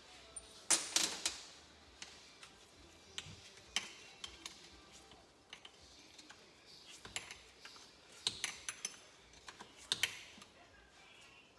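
Hand tools and loose steel bolts clinking and clicking against the engine's metal cases in scattered, irregular clusters. The loudest clinks come about a second in and again near the end.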